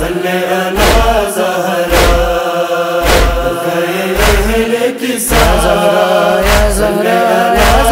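Backing voices of a noha chanting a long, wavering held line between verses, over a deep regular beat about once a second.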